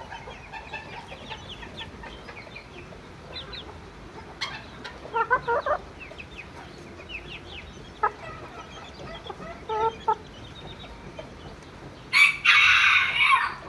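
Chickens clucking and calling, with faint high chirps in the background, and a loud, rough rooster crow lasting about a second and a half near the end.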